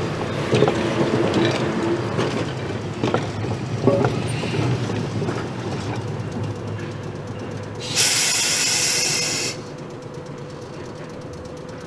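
Vintage streetcar No. 6119 rolling slowly on its rails, with a low rumble of wheels and track, a few knocks and brief wheel squeal. About eight seconds in comes a loud burst of air hissing, lasting about a second and a half and cutting off sharply, as the car comes to a halt.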